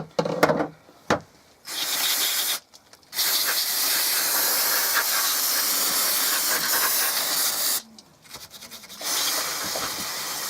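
Aerosol can of brake cleaner spraying in hissing bursts onto a chainsaw's oily casing to degrease it. There is a short spray about two seconds in, a long one of about four and a half seconds, and another starting about nine seconds in. A few short clatters come before the first spray.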